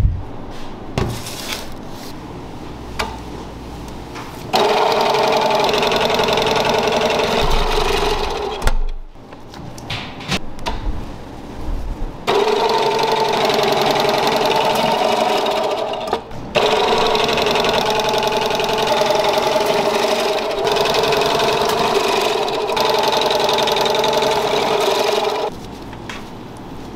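Electric food slicer's motor running with a steady whine in three stretches, cutting out and restarting. Between the runs there are short knocks and clatter of metal parts being handled.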